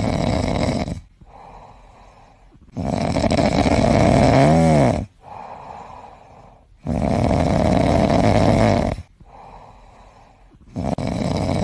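Long-haired white kitten snoring in its sleep: four loud snores about every four seconds, with quieter breaths between. The snore near the middle carries a short squeaky sound that dips and rises in pitch.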